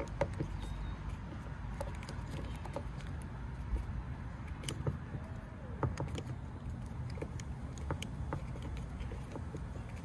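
Small scattered clicks and taps of a folding Torx key set turning a T25 screw in a car's exterior door handle, over a steady low outdoor rumble.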